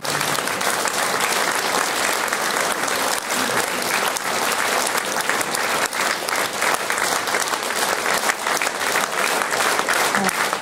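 Large audience applauding steadily, a dense, even mass of hand claps.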